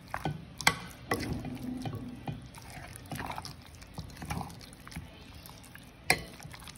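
Raw chicken drumsticks being stirred in an egg-and-flour coating in a glass bowl with a metal utensil: wet squelching, with several sharp clicks of the utensil against the glass.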